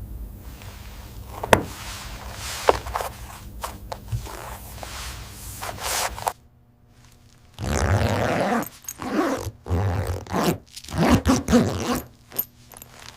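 Workshop handling sounds: a low steady hum with scattered clicks, then a sudden break into a brief quiet gap about six seconds in, followed by repeated short rasping, zip-like strokes and clicks.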